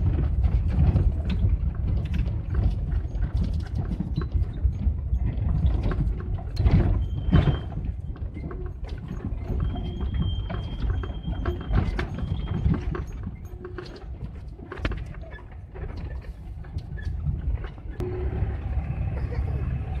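GAZelle van driving over a broken, potholed road, heard from inside the cab: a steady low rumble of the van with frequent knocks and rattles as the wheels hit the bumps.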